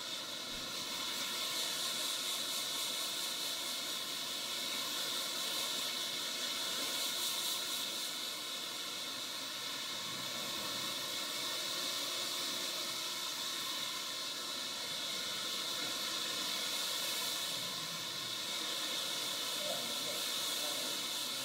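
Handheld hair dryer blowing steadily, a constant rush of air as it is played over short hair.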